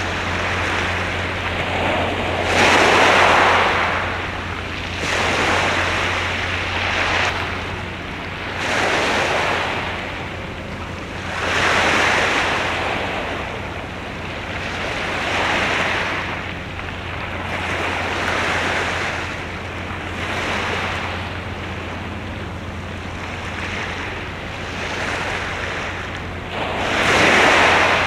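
Waves washing in, surging and fading every few seconds, over a steady low hum.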